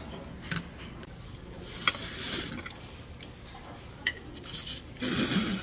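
A man slurping noodles in a few short, hissy pulls, the loudest near the end, with a few light clinks of chopsticks against the bowl and dishes.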